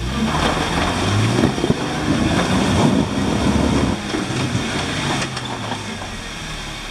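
Jeep Wrangler JK engine revving hard under load as it tries to climb over a rock, with knocks and scrapes from the tyres on the rock. The revs ease off about four seconds in.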